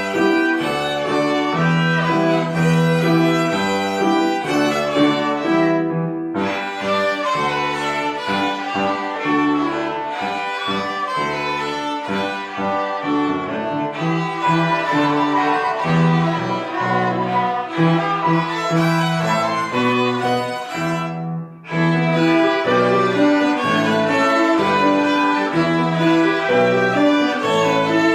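Three violins playing a melody in harmony, over a lower sustained accompaniment. The music eases briefly at a phrase break about two-thirds of the way through.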